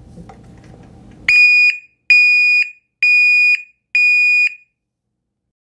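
DNI U155R piezoelectric reversing alarm (back-up siren) sounding its intermittent beep: four identical steady high-pitched beeps, each just under half a second long, about one a second.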